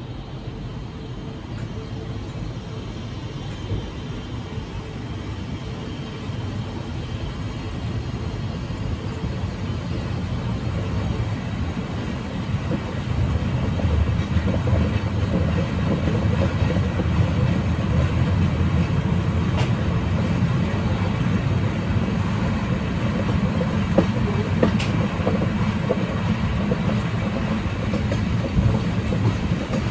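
Passenger train coaches rolling out of a station, a steady low rumble of wheels on rails that grows louder over the first half as the train gathers speed. A few sharp clicks come near the end as the wheels pass over points.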